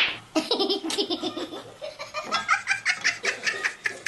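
Laughter in rapid repeated bursts, starting with a loud burst and running on in strings of quick ha-ha pulses.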